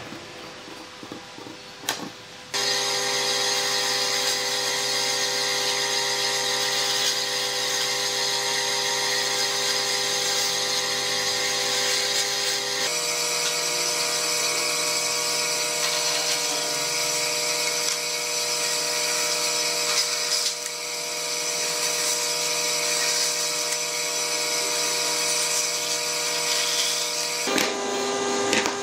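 Band saw running and cutting notches into a wooden board: a steady machine whine with a rasp of the blade through wood. It cuts in abruptly after a couple of seconds of a few light taps, shifts suddenly in pitch about halfway, and stops near the end.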